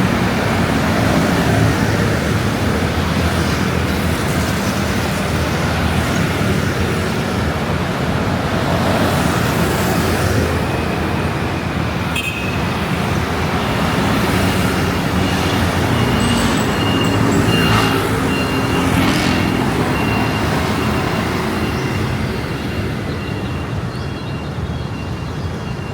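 Heavy road traffic, mostly motor scooters, streaming past in a dense steady rush of small engines and tyre noise, with individual machines swelling past now and then. A faint thin high whine joins about halfway through.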